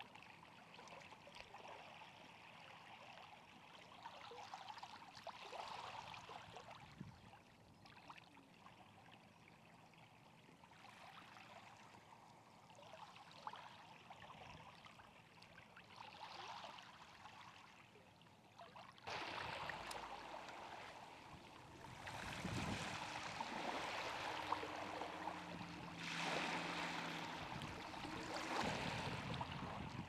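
Steady hiss of water and wind on a coastal tidal flat, getting louder about two-thirds of the way through, with a faint low drone in the last third.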